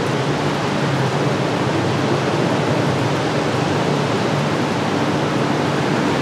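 Steady hiss of wet street ambience with a faint low hum, like idling vehicle engines, running underneath; no sudden sounds stand out.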